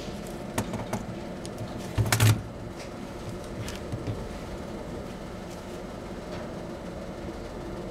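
HIOKI plastic clamp-on meter being handled and set down on a wooden board: a few light clicks, then a louder clatter of knocks about two seconds in, over a steady low hum.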